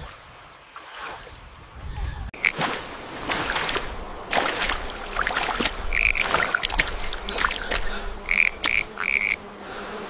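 A low rumble fades over the first two seconds, then frogs croak: rapid runs of clicking calls with a few short, higher chirps repeated near the end.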